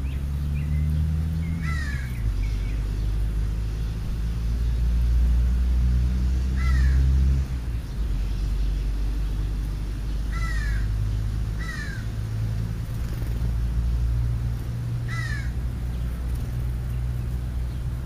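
A crow cawing off and on, about five short, single, falling caws. Under the caws is a steady low rumble that swells and then drops off sharply about halfway through.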